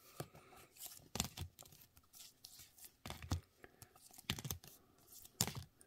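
Sports trading cards being handled and flipped through one after another: a string of faint, irregular clicks and rustles.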